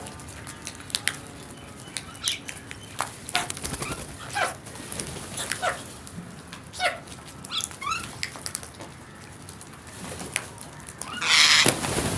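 A flock of crows cawing, many short harsh calls overlapping and scattered irregularly, some sliding down in pitch. A loud rushing noise comes near the end.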